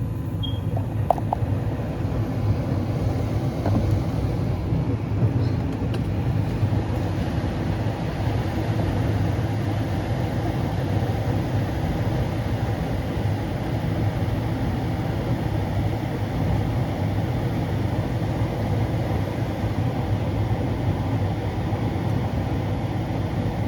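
Gas furnace running with its new gas valve: a steady low rumble of burner and blower, with the gas pressure just set to 3.5.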